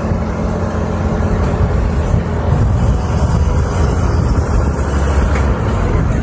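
Diesel engine of a loaded Hyundai dump truck working as the truck moves off along a dirt track, with a tracked excavator's engine running close by; a steady, heavy low rumble.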